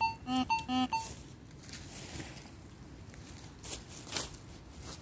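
A rhythmic run of pitched tones stops about a second in; then rustling of dry leaf litter, with two sharper rustles near the end.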